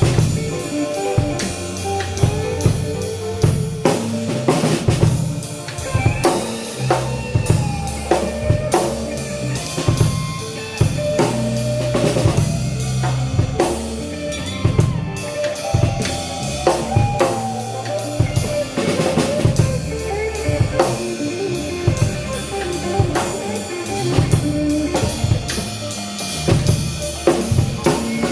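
Blues band playing an instrumental passage: a busy drum kit with bass drum, snare and rimshots, a steady bass line, and a bending melodic lead line over them.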